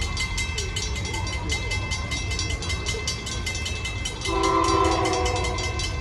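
Freight train passing with a steady, rapid rhythmic clatter. About four seconds in, a diesel locomotive horn sounds one blast of about a second, the loudest part.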